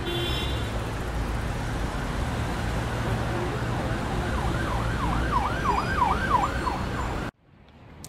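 A siren yelping, its pitch swooping quickly up and down about three times a second for a couple of seconds in the second half, over a steady low rumble and hiss. The sound cuts off abruptly near the end.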